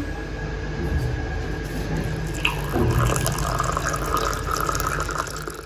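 Freshly heated water being poured into a glass over a green tea bag: a steady splashing, filling stream that stops shortly before the end.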